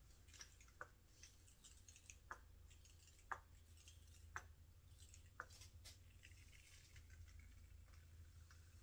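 Faint, soft squishes and clicks, roughly one a second, from a plastic squeeze bottle of acrylic paint being squeezed onto a canvas, over a low steady hum.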